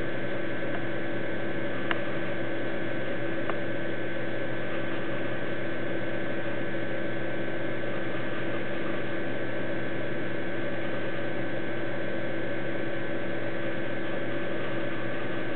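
Steady electrical hum and hiss, unchanging throughout, with two faint ticks about two and three and a half seconds in.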